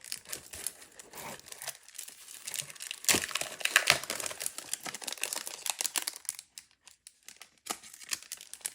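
Crinkling and rustling of a plastic sleeve as sticker sheets are pulled out of it, in irregular crackles with a short lull about two-thirds of the way through.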